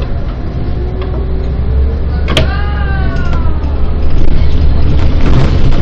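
Bus engine running with a steady low drone that grows louder toward the end. About two seconds in comes one sharp click, followed by a whine that falls in pitch for about a second.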